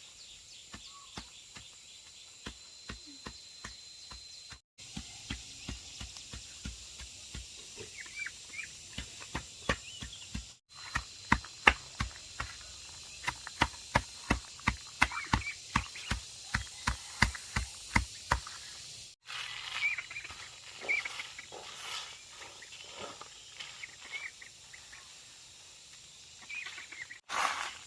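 A steady run of sharp strikes, about two a second, faint at first and loudest around the middle, with short chirps in the later part.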